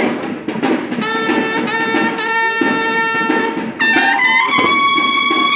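Banda de guerra, a Mexican drum and bugle corps, playing: snare drums beat, and about a second in the bugles come in with long held notes. About four seconds in the bugles move to a louder, higher held note over the drums.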